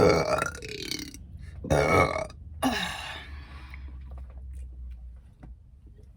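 A woman belching loudly three times in quick succession over the first few seconds.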